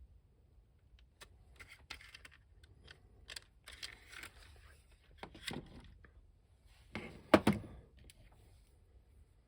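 Small plastic parts and hand tools being handled on a work surface: scattered clicks, taps and rustling, with a louder pair of knocks about seven seconds in.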